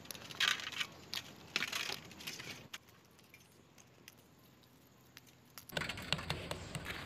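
Shells of boiled eggs crackling and crunching as they are peeled by hand, in short bursts, with a quiet stretch of about three seconds in the middle before the crackling starts again.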